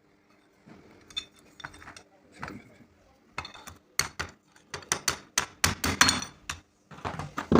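Metal parts and tools of an angle grinder's gear head clinking and tapping during a bearing change. A few light clicks at first, then a quick series of sharp metallic knocks in the second half, loudest near the end.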